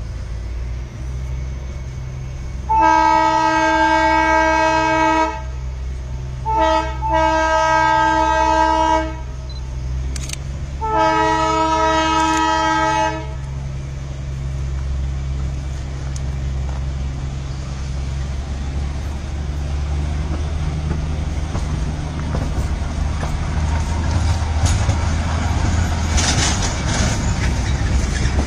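Narrow-gauge toy train's horn sounding three long blasts, each about two seconds, over the steady low running noise of the locomotive. The train's running noise then grows louder as it comes closer.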